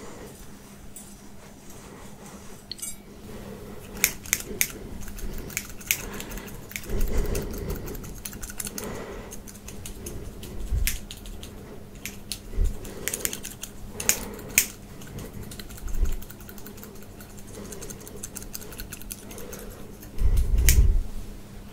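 Close-miked ASMR handling sounds: irregular light clicks, scratching and rustling of small objects moved around the head, with a few soft low thumps, the strongest near the end.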